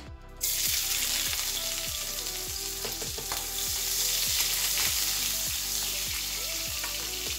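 Chopped onion dropped into hot oil in a frying pan, sizzling from about half a second in, and stirred with a spatula.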